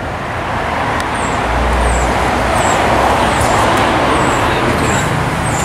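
A road vehicle driving past: tyre and engine noise swelling to a peak about halfway through, then easing off.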